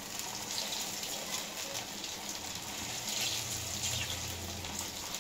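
Sabudana (sago) patties deep-frying in a pan of hot oil: a steady sizzling hiss of bubbling oil.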